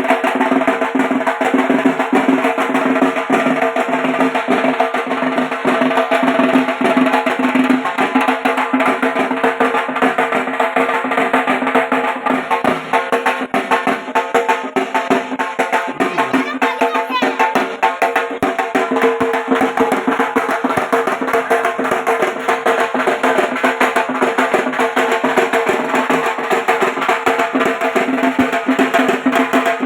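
Dhak, the large Bengali barrel drum, beaten with wooden sticks in a continuous, fast run of strokes.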